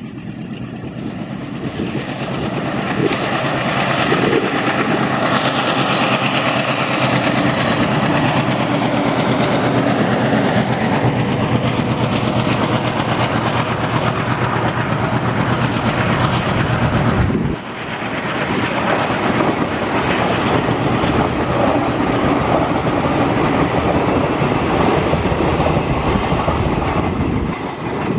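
WDM-3A diesel locomotive hauling a passenger train past at speed: the engine grows louder as it nears, then the coaches rush by with their wheels clattering on the rails.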